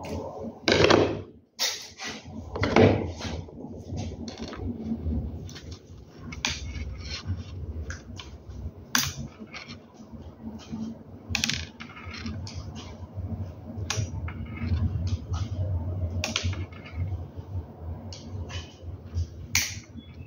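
Vertical-blind headrail being assembled by hand: irregular clicks and light rattles of small plastic carriers and a chain being handled, with two louder clacks in the first three seconds. A steady low hum runs underneath.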